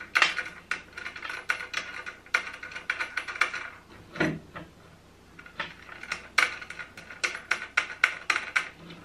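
Metal nut and washer clicking and clinking as they are turned by hand on a threaded leveling post under a sewing machine's flatbed table. The clicks come in irregular quick runs, with a short lull about halfway through.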